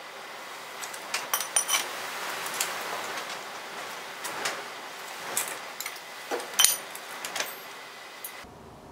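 Scattered light metallic clinks and knocks from a 5 mm plasma-cut steel bracket being handled and bent along its fold line, over a steady workshop hiss.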